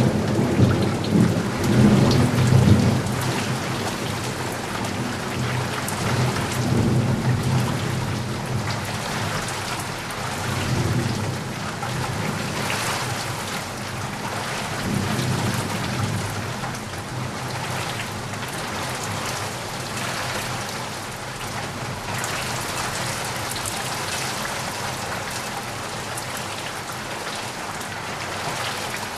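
Steady heavy rain falling, with a loud rumble of thunder at the start that dies away over the first few seconds and fainter rolls of thunder a few seconds later.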